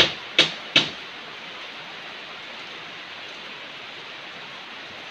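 Heavy tropical rain falling steadily on trees and a muddy yard, a constant hiss, with three sharp loud taps in the first second.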